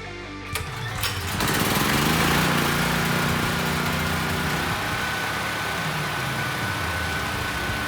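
Generac GP6500 portable generator's single-cylinder engine starting up, with its carburetor freshly cleaned: a couple of clicks, then it catches about a second and a half in and runs steadily with a thin steady whine, settling slightly after a few seconds.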